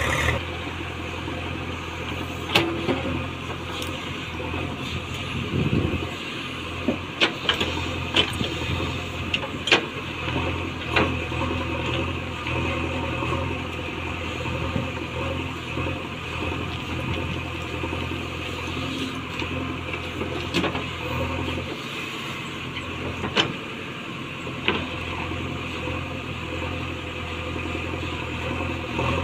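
Diesel engine of a JCB 3DX backhoe loader running steadily as it digs with its backhoe. Scattered sharp clanks and knocks from the bucket and arm come through it, several in quick succession about a third of the way in.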